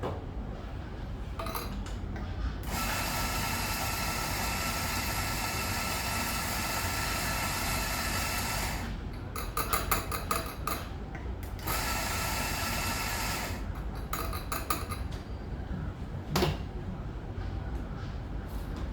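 Electric espresso burr grinder running steadily for about six seconds, stopping, then running again for a couple of seconds. Rattling clicks come between the runs, and a single sharp knock near the end.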